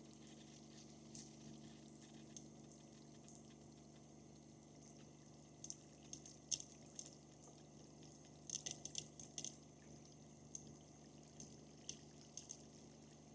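Faint water running and dripping in a camper van's shower as bleach-sanitizing solution is flushed through the fresh water lines, with scattered drip taps, a quick cluster of them about two-thirds of the way through, over a steady low hum.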